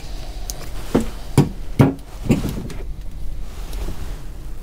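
A handful of sharp knocks, close together in the first half, over a low steady hum.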